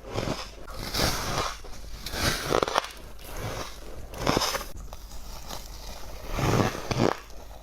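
Close-up bites and crunches of squeaky ice being chewed, a crunch roughly every second, with a quieter pause in the later part.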